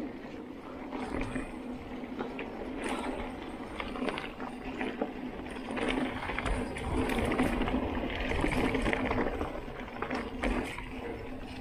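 Mountain bike rolling over a dirt trail: knobby tyres crunching on the ground, with the bike rattling and knocking over bumps and a steady hum, getting louder about halfway through.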